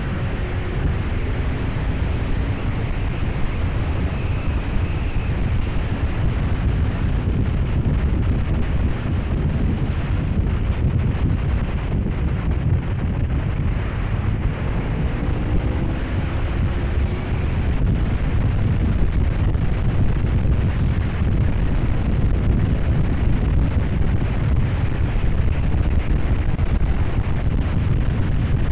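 Heavy wind buffeting on the camera's built-in microphone at riding speed, with the Honda VFR750F's V4 engine faintly underneath, its note rising near the start and again about halfway through.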